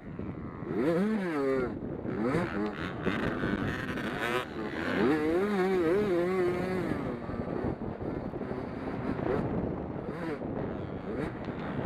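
Race car engines at speed, their pitch swinging up and down as cars pass and come off and onto the throttle, loudest about a second in and again for a few seconds near the middle.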